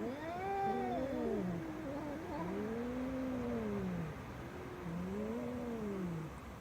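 A domestic cat giving three long, drawn-out meows, each rising and then falling in pitch.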